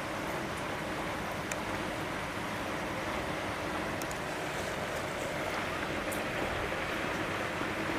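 Steady rushing background noise with a faint low hum, and a few light clicks.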